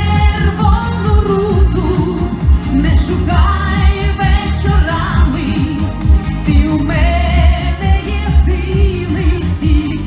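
A woman singing live into a handheld microphone over loud amplified pop accompaniment with a heavy, steady bass beat.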